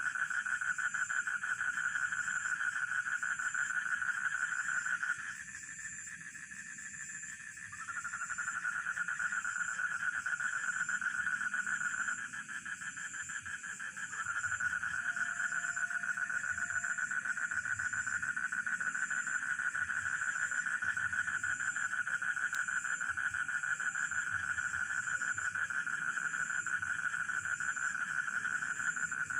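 Night chorus of rice-field frogs and crickets: a dense, fast-pulsing trill that breaks off twice for a couple of seconds and starts again, with a thin, high, steady insect trill above it.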